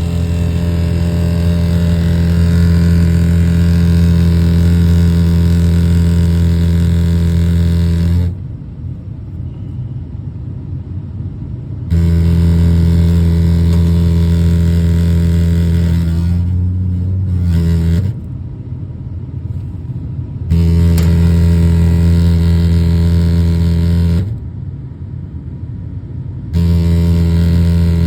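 A furnace making an unusual loud, low, steady-pitched hum or drone as it kicks in. The hum cuts out about 8 seconds in and returns, then stops and restarts twice more, wavering in pitch for a moment before the second cut-out.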